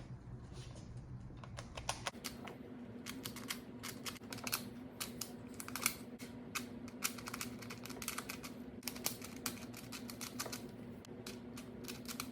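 Rapid, irregular plastic clicking and clacking of a stiff, badly turning picture Rubik's cube being twisted by hand.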